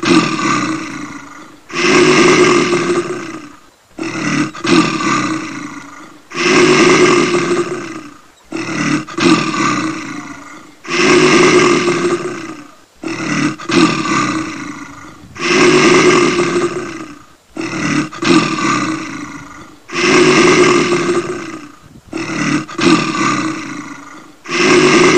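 A large animal roaring again and again at an even pace, about one rough roar every two and a half seconds, each starting abruptly and tailing off.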